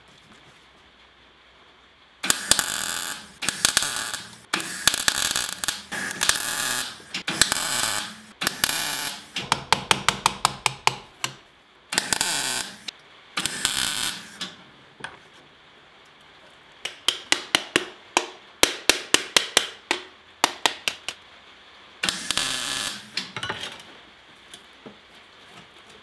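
MIG welder arc crackling in a string of short welds on thin sheet steel, each burst lasting about a second, with several quick stuttering runs of brief pulses in between. This is tack and stitch welding of curved steel pieces onto a steel ball.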